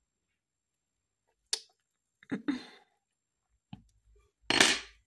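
Short clicks and knocks from handling a metal dental wax carver and the blocked-out tooth while working blue wax: a sharp click about a second and a half in, a few more in the middle, and the loudest, a brief knock, near the end.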